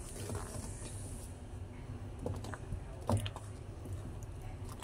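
A utensil stirring and scraping thick, sticky ube maja blanca against a metal pot, with scattered short scrapes and clicks, the loudest cluster about three seconds in.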